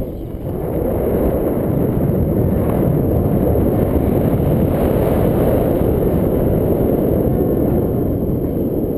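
Rushing wind of paraglider flight buffeting an action camera's microphone on a selfie stick: a steady, loud, low rumble, dipping briefly right at the start.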